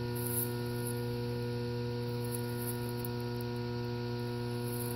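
Linear diaphragm air compressor for pond aeration running with a steady electric hum and a stack of overtones. Its outlet valves have been partly closed, so it is pumping against added back-pressure.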